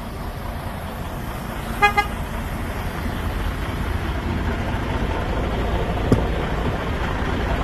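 Semi truck's diesel engine running as the rig pulls slowly past close by, its rumble growing louder. Two short horn toots come about two seconds in, and a single sharp click about six seconds in.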